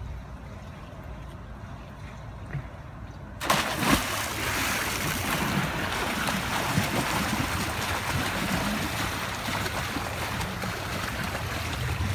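A swimmer diving into a pool: a sudden splash about three and a half seconds in, then steady splashing of freestyle strokes and kicks.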